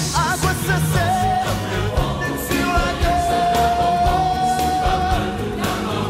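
Pop-rock musical-theatre song: a lead voice sings over full band backing, holding one long high note through the middle.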